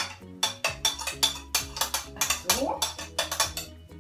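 Spatula scraping and tapping against a plate in rapid strokes, about four a second, pushing grated zucchini off into a mixing bowl; the strokes stop near the end.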